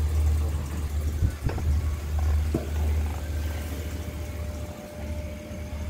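A stopped diesel train's engine idling with a steady low hum, with a few short knocks in the first half.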